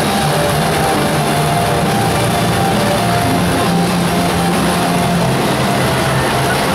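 Eight motorcycles running together at high revs as they circle inside a steel-mesh globe of death, making a loud, steady, dense engine noise mixed with loud music.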